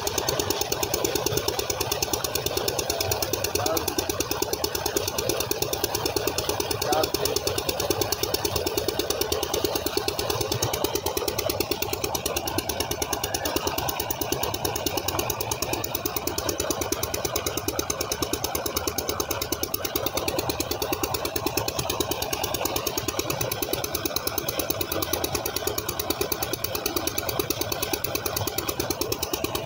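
Engine driving a tube-well pump, running with a steady rapid beat, over the rush of water gushing from the outlet pipe into the tank.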